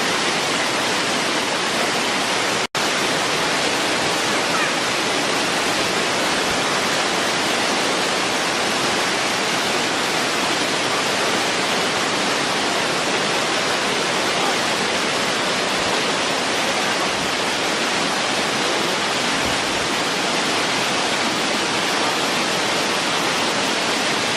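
Waterfall rushing, a steady, even roar of falling water that drops out for an instant about three seconds in.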